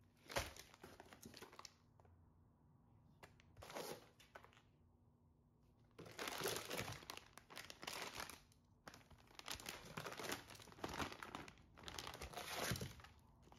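Crinkly packaging being handled and torn open while a parcel is unpacked. It comes in bouts: a short burst at the start, another around four seconds in, then a long stretch of crinkling and rustling from about six seconds on.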